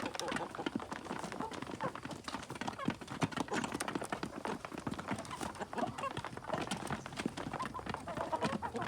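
A flock of kampung chickens pecking, with many quick, irregular sharp taps and short clucking calls mixed in.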